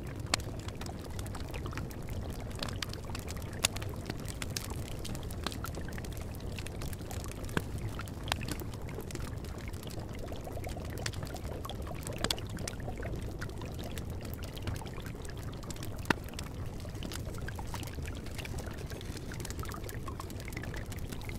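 Steady running water, with scattered short sharp clicks.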